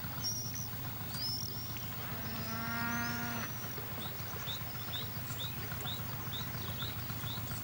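A cow moos once, a single drawn-out call lasting just over a second, about two seconds in.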